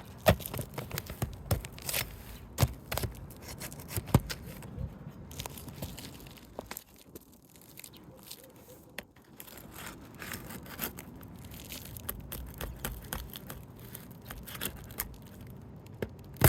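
A Roof Snake shingle-removal tool working under asphalt shingles to pull a nail: scraping with many sharp clicks and knocks, and crackling of the stiff shingle material, with a quieter spell about halfway through.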